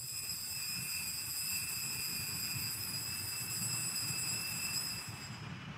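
Altar bells ringing at the elevation of the consecrated host, the bell that marks the consecration. High, steady ringing tones stop just before the end.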